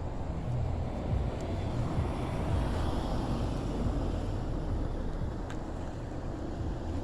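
Street traffic noise, with a vehicle passing that swells and fades around the middle, over a fluttering low rumble of wind on the microphone.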